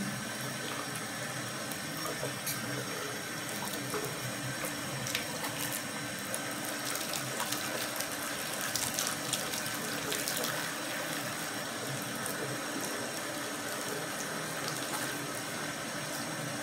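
Steady thin stream of water running from a bathroom sink tap into the basin and onto a wet cat sitting in it.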